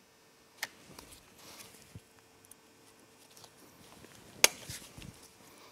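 Scattered metal clicks and taps as hand tools work a cotter pin through a castle nut on a wheel hub and bend it over, with one sharp click about four and a half seconds in.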